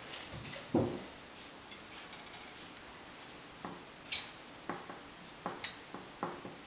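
Puppies' paws and claws knocking and clicking against a baby gate and wooden floor: one louder thump about a second in, then a scatter of short sharp knocks in the second half.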